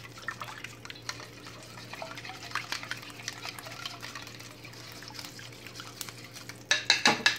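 Raw eggs being beaten by hand in a plastic bowl: liquid swishing with a run of small scraping clicks from the utensil against the bowl. Near the end come a few sharper, louder clicks.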